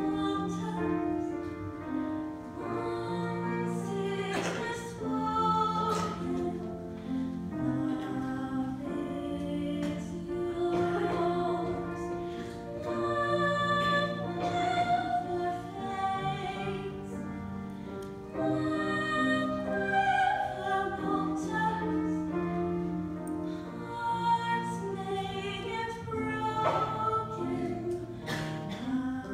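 A woman singing a slow classical-style solo with vibrato, holding long notes over sustained low accompaniment.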